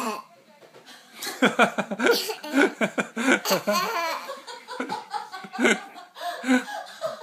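Hearty laughter in repeated short bursts, a reaction to a baby's burp.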